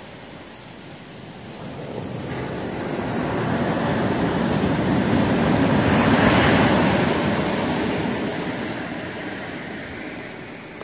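Rough ocean surf breaking on a sandy beach. One wave's rushing noise builds, peaks as it breaks on the shore about halfway through, then fades as the wash runs back.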